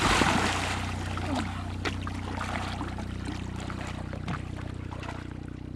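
A swimmer splashing into calm sea water off a boat's ladder, then swimming breaststroke away with soft, scattered splashes. A steady low hum runs underneath.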